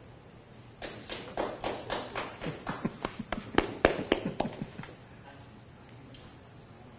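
A few people clapping in sharp, separate claps, about four a second, starting about a second in and stopping after about four seconds.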